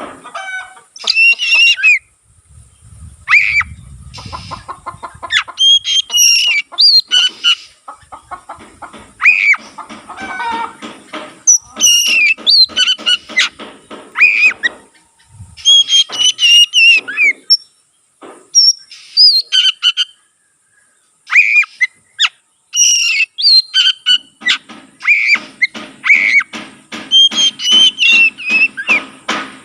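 Oriental magpie-robin (kacer) in full, loud song: bursts of sharp, clear whistled notes and glides alternate with harsh, rattling chatter, with short pauses between the phrases.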